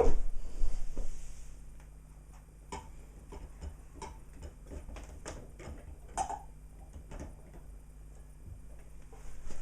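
1970s Cona reflux coffee machine at work: irregular faint ticks and small pops, about one or two a second, over a low steady hum, with a louder noisy stretch in the first second or so.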